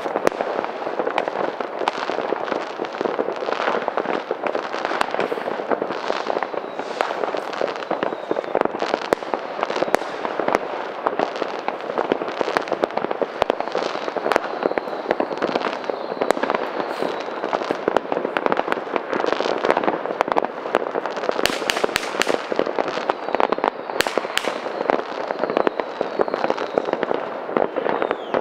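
Many fireworks and firecrackers going off at once in a dense, continuous crackle of pops and bangs, with a few faint whistles among them.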